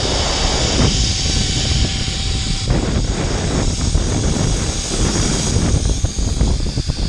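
Zipline trolley pulleys running fast along the steel cable, a steady rushing whir, with wind buffeting the microphone.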